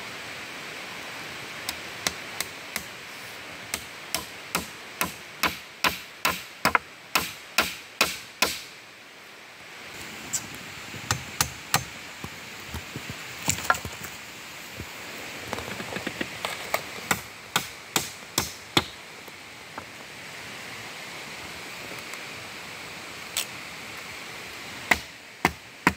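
A blade chopping and knocking on green wooden sticks. A steady run of strikes at about two a second gives way, after a short pause, to irregular knocks, with a few sharp ones near the end.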